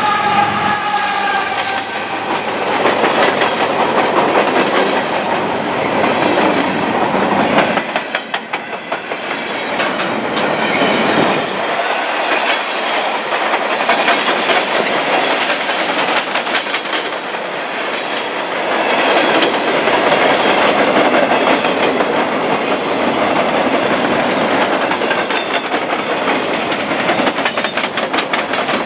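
Freight train cars rolling past close by: a steady rumble and rattle of steel wheels on rail, with runs of clickety-clack as wheels cross rail joints.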